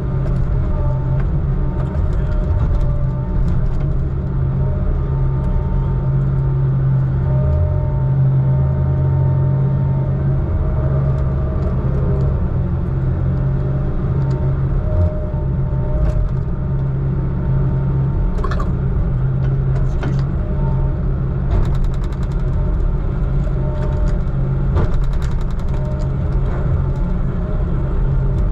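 Heavy diesel engine of logging equipment running steadily: a constant low hum with a faint higher whine over it. Brief clicks and rattles come in the latter part.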